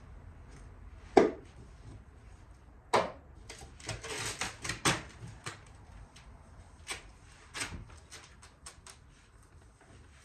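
Satin black vinyl wrap film being pulled and worked by hand over a car's trunk lid, giving irregular crackles, snaps and rubs. There is a sharp knock about a second in and a dense run of crackling a few seconds later.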